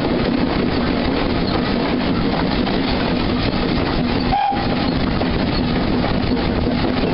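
Bagnall 0-4-0 saddle tank steam locomotive running with a carriage in tow: a steady, loud mix of the engine working and wheels on rails, with a momentary dip about halfway through.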